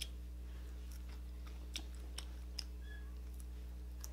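Close-up chewing of a grilled Filipino barbecue skewer: scattered soft, sharp mouth clicks and smacks over a steady low hum.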